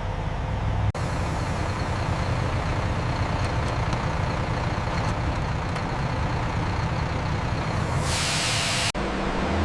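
Heavy sawmill machinery running with a steady low drone and a faint high whine, with a sharp hiss of released air about eight seconds in.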